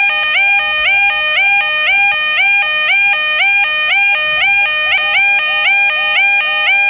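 Level crossing alarm sounding: two pitched notes alternate in quick, steady repetition, each note sliding up briefly at its start.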